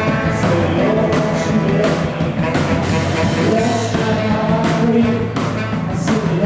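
Live rock band playing: guitar chords over bass and a steady drum beat with cymbal hits.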